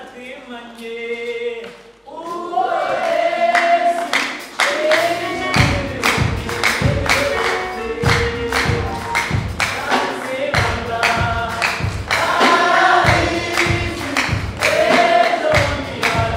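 Gospel singing by voices like a choir, with a steady percussion beat coming in about five seconds in.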